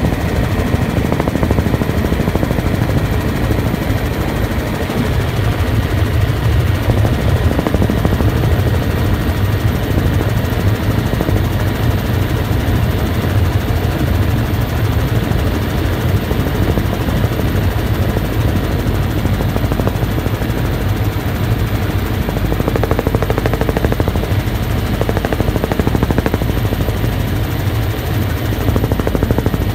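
Helicopter in flight heard from on board: loud, steady rotor and engine noise with a rapid pulsing beat and a deep low rumble.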